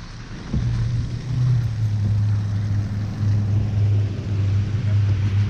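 A steady low engine hum that starts about half a second in, over wind noise.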